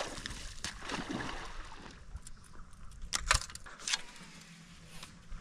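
Water sloshing and gurgling around a small boat, with a few sharp clicks and knocks a little over three seconds in.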